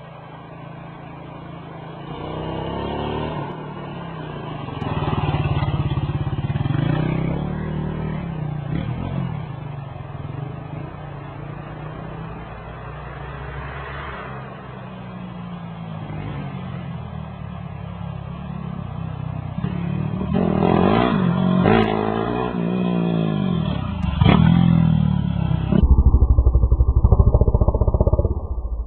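Motorcycle engines running and revving, their pitch rising and falling as bikes accelerate and pull away. The revving is busiest and loudest in the later part, and near the end the sound changes abruptly to a louder, closer engine.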